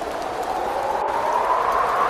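Wind whistling, its hollow pitch gliding upward and growing a little louder. Under it is a hiss of rain with faint scattered drop ticks.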